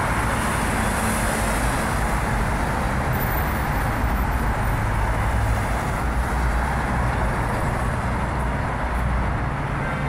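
Steady road traffic noise from cars and buses on a wide multi-lane city road, a continuous rumble and hiss with no single event standing out.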